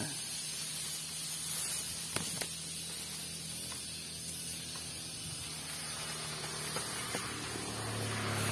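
Steady outdoor hiss with a faint low hum underneath and a few soft clicks; the low hum swells near the end.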